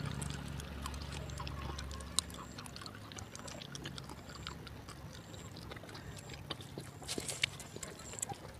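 Eating sounds: chewing, and fingers picking through cooked fish and lettuce on a banana leaf, heard as a scatter of small wet clicks and smacks. A low hum fades out in the first two seconds.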